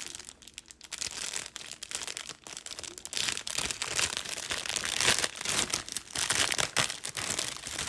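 Crinkly packaging being crumpled and torn open by hand as a pair of socks is unwrapped. It is a dense run of crackles, loudest in the middle stretch.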